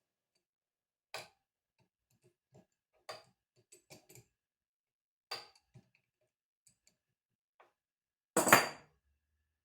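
A few sharp taps and clicks of hard objects being handled, with a louder clatter near the end.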